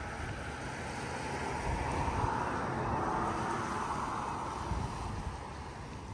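Wind buffeting the microphone, with a broad rushing sound that swells about a second in and fades away again by about five seconds.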